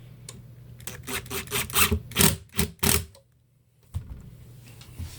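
About eight short rasping strokes on particleboard drawer parts, about four a second, then an abrupt drop to near silence and a single knock.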